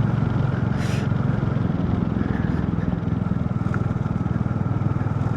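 Motorcycle engine running steadily while riding, with an even low pulse. A brief hiss comes about a second in.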